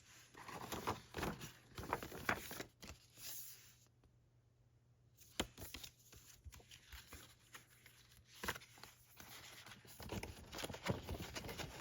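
Glossy paper poster being handled and unfolded: rustling and crinkling with light clicks and taps, broken by a brief quiet pause in the middle.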